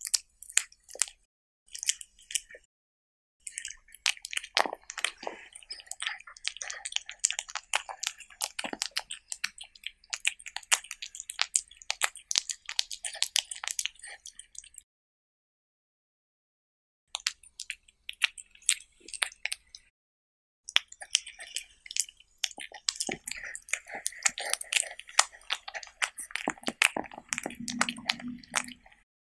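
Cat chewing and tearing at raw meat, close-miked: quick wet smacks and sharp clicking chews in irregular bursts, stopping dead for about two seconds near the middle.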